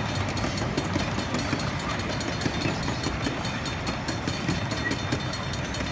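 Passenger cars of a miniature ride-on railroad rolling past, a steady rumble of wheels on the track with rapid clicking over the rail joints.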